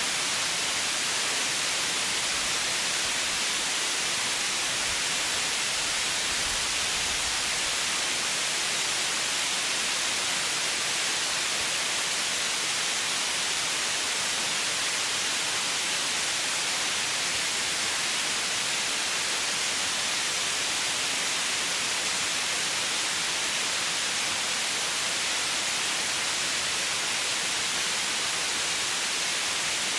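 Steady white noise: an even hiss, brightest in the high end, with no change in level.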